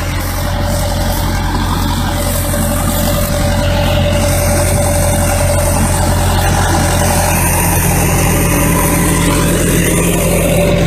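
Engine of a piece of heavy equipment running steadily, getting slightly louder over the first few seconds.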